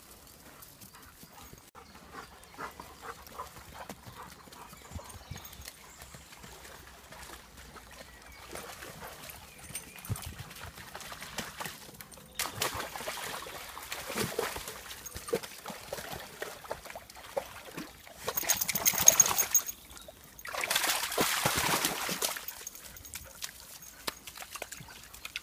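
Dogs moving about in woodland undergrowth: scattered light steps and rustling, then from about halfway several louder noisy stretches a second or two long, the loudest near the end.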